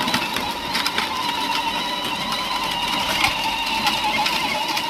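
A small machine running steadily: a continuous whine with a rapid stream of light clicks.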